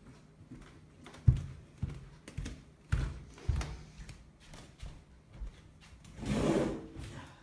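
A series of irregular knocks and thumps, as of things being handled or set down in a small room, followed about six seconds in by a louder, brief voice-like sound.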